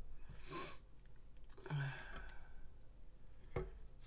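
Close-miked chewing of soft macaroni and cheese, with a sniff about half a second in and a longer breathy mouth noise around two seconds in. A single sharp click near the end.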